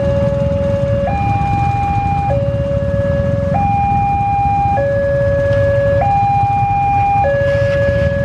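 Railway level-crossing warning alarm sounding its two-tone signal, switching between a lower and a higher tone about every 1.2 seconds: the warning that a train is approaching while the barriers are closed. Under it is the low running of the waiting motorcycles' engines.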